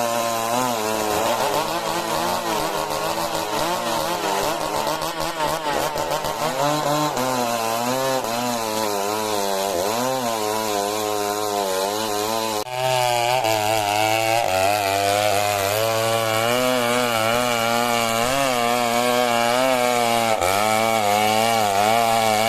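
STIHL MS 382 two-stroke chainsaw cutting lengthwise through majau timber, its engine note wavering up and down under the load of the cut. About 13 seconds in it drops out for an instant, then carries on slightly louder.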